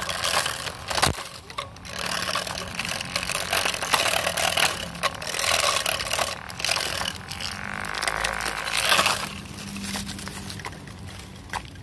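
Homemade cordless grass cutter, a 6-volt DC motor spinning a razor blade under a plastic lid, running while it cuts through grass. The blade strikes the stems in an irregular rustling, with many short hits over a faint motor hum.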